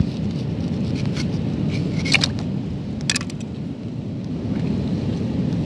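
Steady low wind rumble on the microphone, with short sharp scrapes of a knife against the rock about two and three seconds in.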